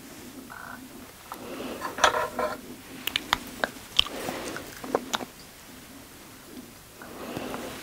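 Close-miked eating sounds: chewing a mouthful of tteokbokki (chewy rice cakes in sauce), with several sharp clicks of a wooden spoon on the glass bowl.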